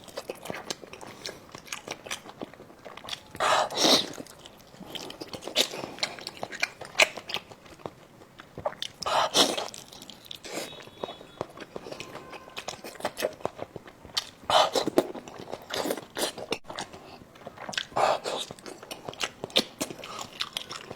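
A person eating sauce-braised monkfish close to the microphone: wet chewing and mouth clicks throughout, with a few louder bites or slurps every few seconds.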